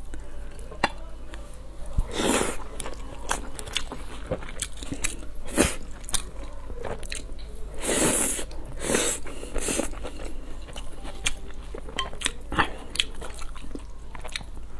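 Close-miked eating sounds: a person chewing and slurping noodles, with short clicks between bites and a loud slurp about eight seconds in.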